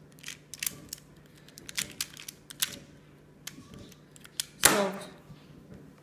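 Plastic Pyraminx puzzle being turned by hand: soft, irregular clicks as its layers and tips are twisted, with a louder brief noise about three-quarters of the way through.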